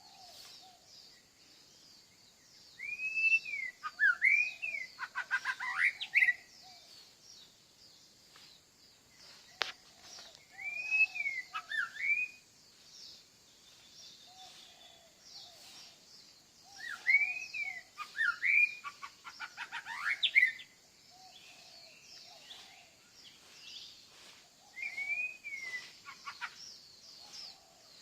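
Wild birds singing: one loud bird repeats a phrase of sweeping, arching whistles four times, over a constant high-pitched chirring chorus and scattered lower short notes.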